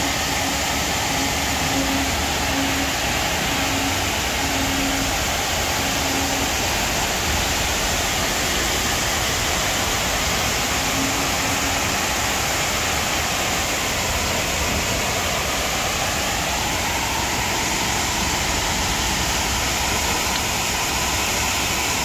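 Steady rushing roar of a tall waterfall, the water falling hard and constant.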